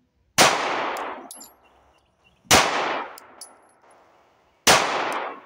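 Three 9mm shots from a CZ P01 pistol, about two seconds apart, each followed by an echo that trails off over about a second. A light high clink follows each shot.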